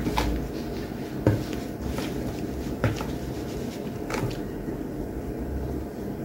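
Chicken pieces being tossed and coated in flour in a bowl: soft handling noise with a few light knocks against the bowl, three of them a second or so apart.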